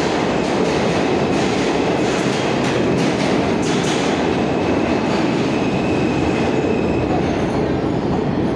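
R160A subway train pulling out of an underground station and gathering speed past the platform: a loud, steady rumble of wheels on rail, with wheel clicks over rail joints in the first half and a faint high whine about halfway through.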